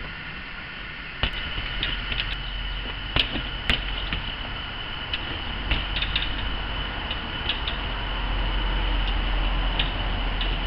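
Sharp knocks and taps of a trials unicycle hopping and landing on hard surfaces, over a steady hiss. The two loudest knocks come about half a second apart, a little past three seconds in.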